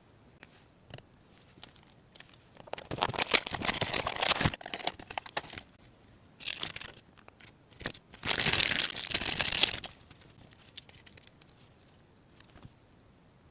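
Crinkling and rustling of thin wrapping material in two main bursts of about two seconds each, with a shorter burst between them and a few light clicks of small pieces being handled.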